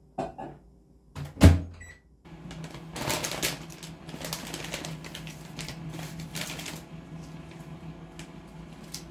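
A microwave oven door shuts with a thud about a second and a half in, its keypad gives a short beep, and the oven starts running with a steady hum, reheating cooked rice. Over the hum, the plastic wrapping of a fried-tofu pouch pack crinkles and tears as it is opened.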